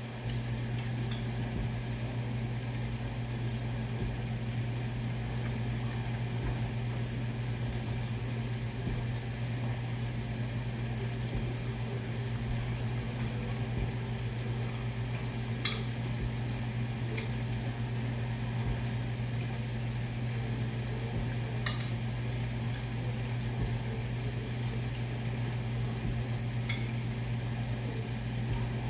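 A steady low hum of a running kitchen appliance, with a few light clinks of a metal fork against a ceramic plate.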